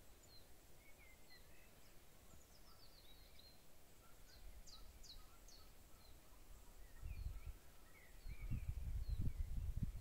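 Small birds calling in the scrub: short high chirps repeating every second or so, with a run of quick downward-sweeping calls about halfway through. From about seven seconds in, gusts of wind rumble on the microphone and become the loudest sound.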